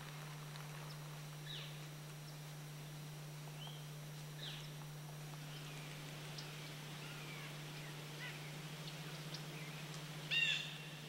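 Wild birds calling: scattered short high chirps, then one louder harsh call near the end, over a steady low hum.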